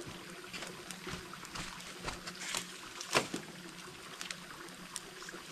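Water trickling in a stream, with scattered small knocks and clicks and one sharper knock about three seconds in.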